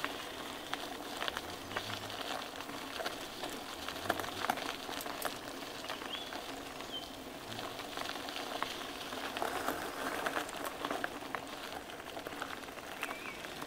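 Bicycle tyres crunching over a rough, loose downhill path, with a steady crackle and many small clicks and rattles.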